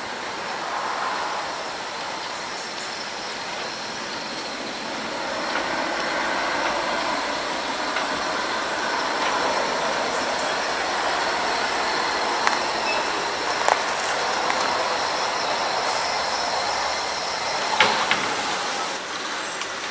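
Narrow-gauge steam locomotive and its carriages running slowly along the track toward the listener, growing louder as they near, with a few sharp knocks in the second half.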